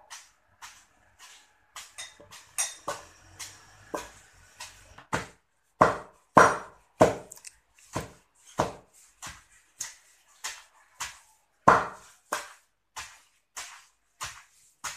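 Wooden pestle pounding cassava leaves in a wooden mortar: a steady series of thuds, about two a second.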